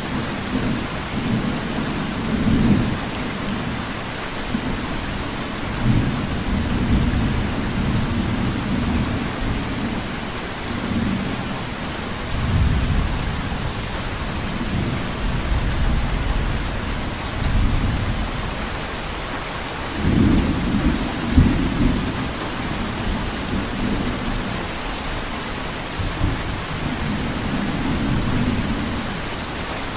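Steady rainfall hissing evenly, with irregular low rumbles swelling and fading underneath every few seconds, the strongest about two thirds of the way through.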